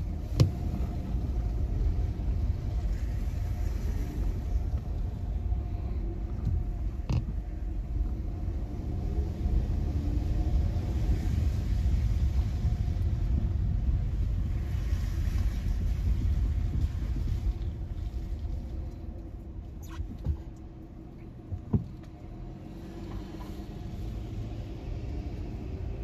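Car driving, heard from inside the cabin: a steady low road and engine rumble that eases off for a few seconds about three-quarters of the way through, with a few light knocks.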